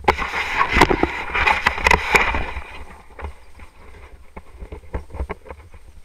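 Footsteps on a concrete slipway and the rustle and flap of a windsurf sail being carried, over wind rumble on the microphone. The sail rustling is loudest for the first two and a half seconds, after which mainly the footstep ticks remain.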